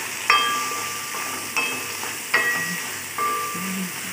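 Spatula knocking and scraping against a metal kadai as onions are stir-fried in hot oil. Four ringing metal knocks sound over a steady sizzle.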